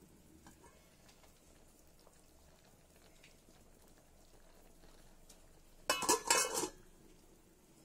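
Stainless steel lid set down on a steel cooking pot: a short cluster of metal clinks and rattles about six seconds in.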